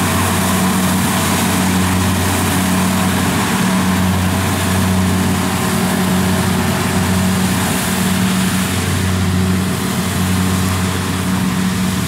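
Kubota DC70 rice combine harvesters running under load as they cut and thresh standing rice: a steady diesel drone with a strong low hum, under a broad hiss.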